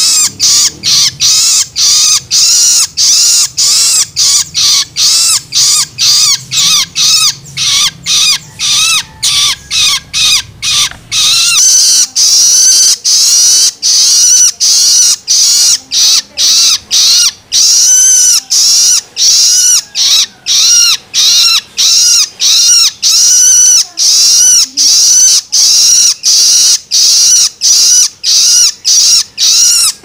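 Long-tailed shrike (cendet) chick giving its harsh, rapid food-begging calls (loloan), repeated over and over at about three a second.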